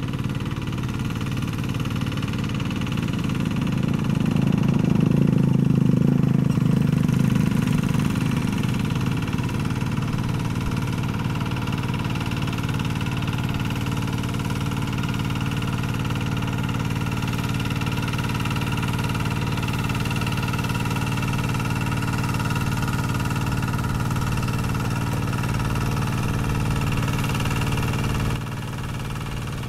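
Kubota RD110Di-2T 11 hp single-cylinder diesel on a Quick Zena two-wheel hand tractor, running steadily while driving its rotary tiller through wet paddy mud. The engine gets louder for a few seconds about a quarter of the way in, and the level dips briefly just before the end.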